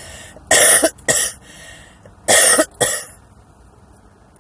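A woman coughing hard four times, in two pairs of coughs, set off by inhaling harsh cigar smoke from a Black & Mild.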